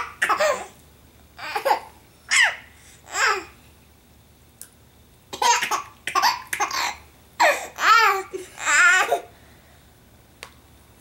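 Baby laughing in short bursts, several quick laughs, then a pause of about two seconds, then a longer run of wavering laughs that stops about two seconds before the end.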